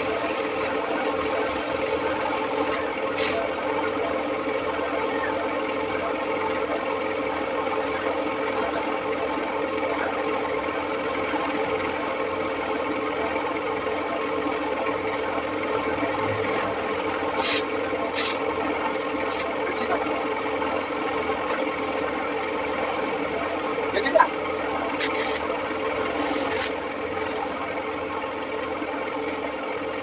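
A machine runs with a steady drone. Over it come rubbing and rasping sounds of hand work on the inside of a tractor-trolley tyre being readied for a puncture repair. A few light clicks, and one sharp knock about two-thirds of the way through.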